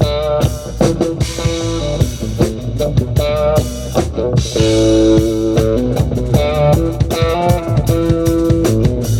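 Live band playing an instrumental reggae jam: electric guitar chords over bass guitar and drum kit, with no vocals.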